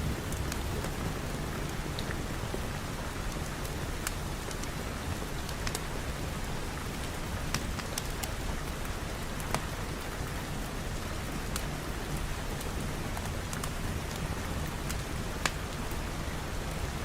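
Steady rain falling, an even hiss with a low rumble beneath it, broken by scattered sharp clicks every second or two.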